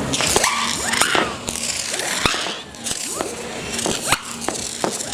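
Fireworks going off: a run of sharp bangs and crackles, with several whistles sliding up and down in pitch.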